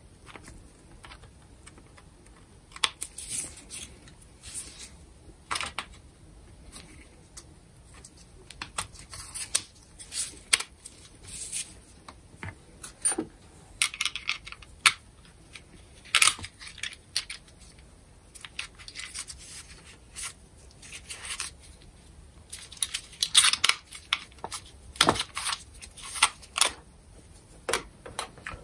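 Irregular clicks, taps and short scrapes of small metal and plastic parts as an angle grinder's gear housing is handled and probed with a thin hand tool during reassembly.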